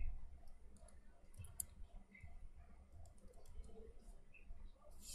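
Computer keyboard keys clicking in a run of light, uneven taps as a word is typed, over a low background hum. A steady hiss sets in at the very end.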